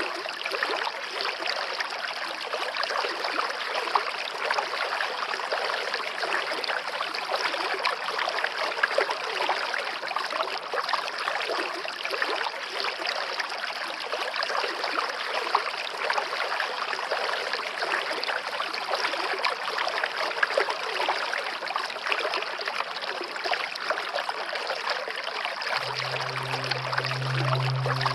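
Steady running water, a stream-like flow with fine trickling detail. Low sustained musical tones come in near the end.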